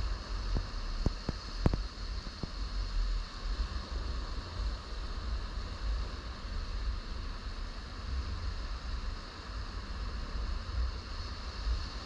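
Wind buffeting the microphone in a gusting low rumble over the steady wash of small surf waves on a sandy shore. A few faint clicks come in the first two seconds.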